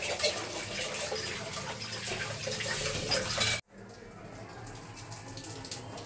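Water pouring and splashing on a wet stone floor: a steady hiss that cuts off suddenly about three and a half seconds in, leaving a quieter steady background noise.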